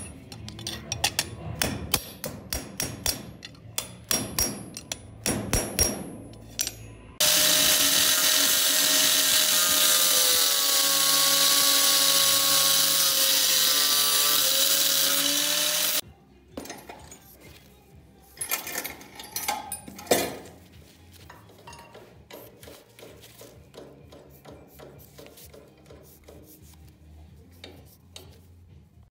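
Several sharp ringing metal taps, then an abrasive cut-off wheel cutting through steel for about nine seconds, its whine dipping in pitch as it bites under load, followed by scattered knocks and light scraping.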